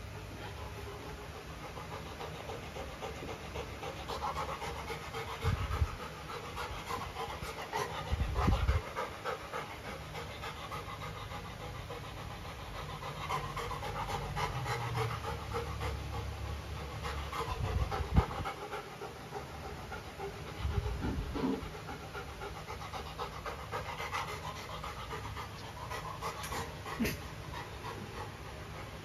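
Golden retriever panting steadily with her mouth open while she sniffs and mouths a carabao horn chew, with a few dull thumps scattered through.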